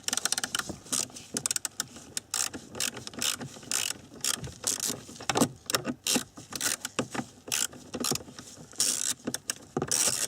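Ratchet with a size 8 socket clicking in repeated quick bursts as screws are backed out.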